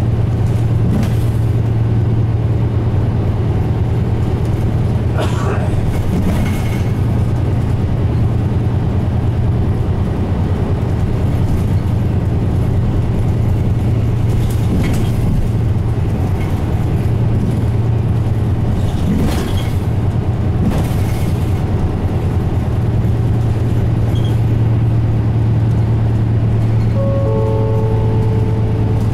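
Interior running sound of a Mitsubishi Fuso Aero Star KL-MP37JK city bus on the move: its 6M70 turbocharged diesel engine drones steadily under road noise, with occasional knocks and rattles from the body. Near the end a few short electronic tones sound.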